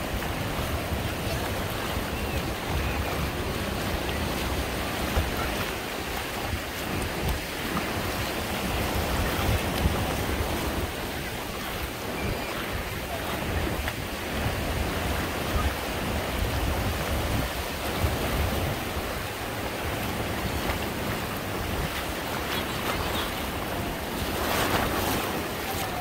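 Small surf breaking and washing up a sandy shore in a steady hiss, with wind buffeting the microphone as a low rumble. A louder surge of wash comes near the end.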